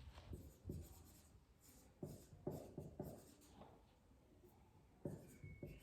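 Faint, short strokes of a pen writing words on a board, stopping and starting, with a pause a little past halfway.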